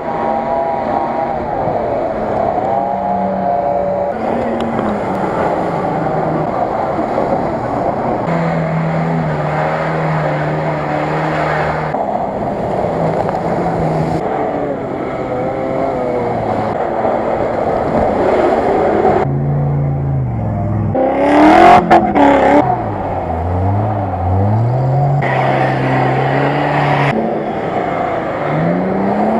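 Off-road 4x4 engines revving hard under load, in a string of short clips whose engine pitch jumps at each cut. The revving rises and falls, with the loudest high-revving stretch about two-thirds of the way through.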